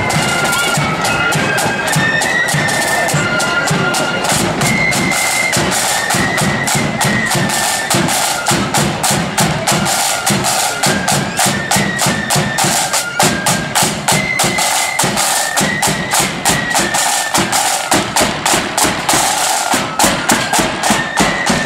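Marching flute band playing a tune, the flutes carrying the melody over rapid snare drumming and a bass drum beat. The drumming grows louder in the second half and is loudest near the end as the drum corps passes close.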